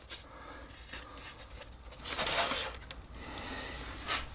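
Faint rustling and scraping of a carbon exhaust muffler rubbing against its foam packaging as it is handled and lifted out, with a short click near the end.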